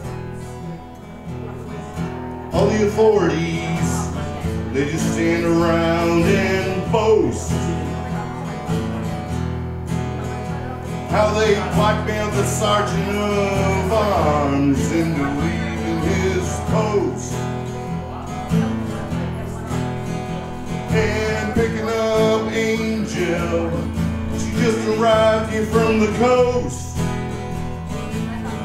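Live band music with guitars over a steady bass, and a melodic lead line that comes in three times.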